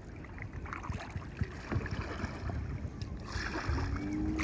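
Kayak paddle strokes dipping and splashing in choppy water, with wind rumbling on the microphone; a louder wash of water comes about three seconds in.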